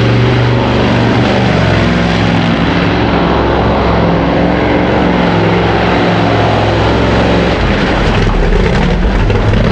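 Mud truck engines running hard at high revs as the trucks plough through deep mud. The engine note changes about seven and a half seconds in, as a different truck is heard.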